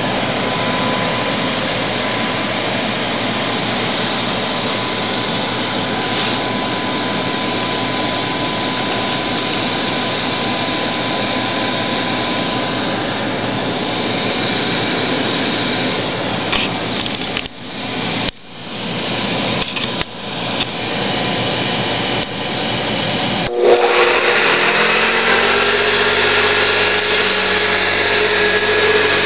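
Hoover InnKare UK701 commercial vacuum cleaner running with a steady motor noise. It drops out briefly several times past the middle, then from about 24 seconds in runs on with a changed, more tonal sound whose pitch rises and settles as the motor speeds up.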